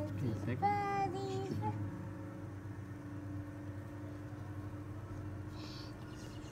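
Siamese cat yowling: one drawn-out, wavering call in the first second and a half or so, then a steady low hum for the rest.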